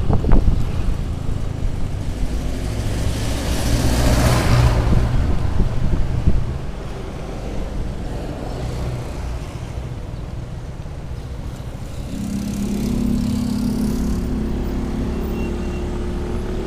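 Motor scooter engine running while being ridden on a road, mixed with the noise of passing traffic. About twelve seconds in the engine note becomes clearer and climbs slightly as the scooter speeds up.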